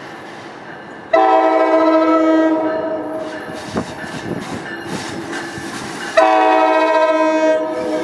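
Nathan K5LA multi-chime air horn on an NJ Transit ALP-46A electric locomotive, sounding two long blasts about five seconds apart as the train approaches the station. A low rumble from the train runs underneath.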